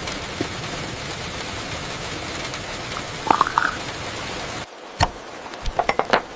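Steady rain falling, stopping abruptly about two-thirds of the way through, followed by a few sharp clicks and taps.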